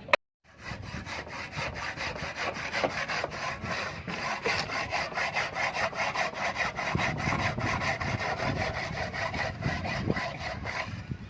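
A saw cutting into a red clay brick, scraping back and forth in rapid, even strokes. A sharp click comes right at the start, before the sawing begins.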